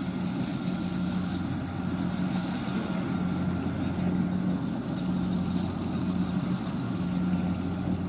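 Kubota DC-70 combine harvester's diesel engine running steadily while it cuts rice: a continuous mechanical drone with a low hum that swells and fades about once a second.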